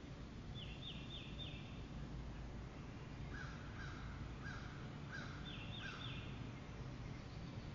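Wild birds calling in woodland. A quick run of four high, falling notes comes about half a second in. A series of five evenly spaced lower calls follows, like a crow's caws, and another quick run of four high notes comes near the end. Faint low background noise runs underneath.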